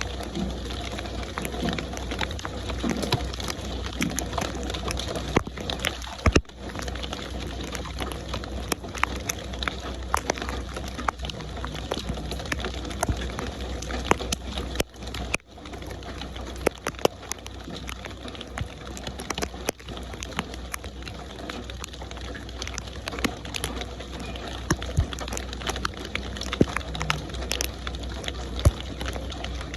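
Steady rain falling, with a dense patter of drops ticking on a surface. The sound drops out briefly twice, about six seconds and fifteen seconds in.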